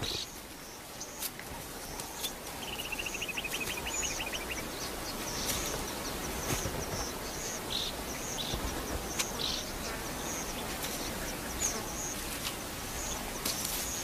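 Small wild birds chirping repeatedly in short high calls, with a rapid trill lasting about two seconds from about three seconds in, over steady low background noise.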